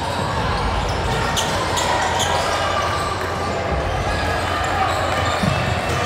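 Basketball bouncing on a gym court over a steady background of voices, with a few short sharp sounds about one and a half to two and a half seconds in.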